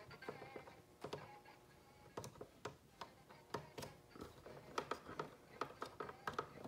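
Douglas fir talking tree animatronic starting to move after being plugged in: its mechanism gives faint, irregular clicks, about one or two a second, as its face shifts and its eyes open.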